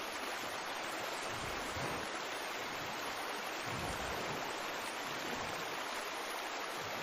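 Steady, even hiss with no other sound: the background noise floor of the voice-over recording, carrying on after the narration stops.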